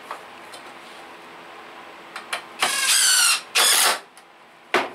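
Cordless DeWalt driver driving a deck screw into a wooden seat slat: the motor runs for about a second with its pitch rising, stops briefly, then drives again for about half a second. A short final burst of the driver comes near the end.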